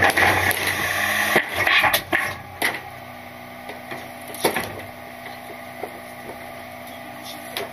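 Load Master Legacy rear-loader garbage truck's hopper: a loud rush of noise for about the first second and a half, then a few sharp knocks and cracks of trash, settling to the steady hum of the truck running.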